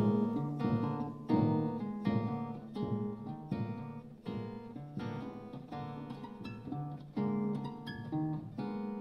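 Hollow-body archtop electric guitar playing jazz chords, struck in an uneven rhythm roughly one every half-second to second.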